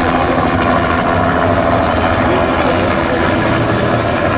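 Bell 505 Jet Ranger X single-turbine helicopter flying low overhead, its rotor and engine running at a steady, loud level.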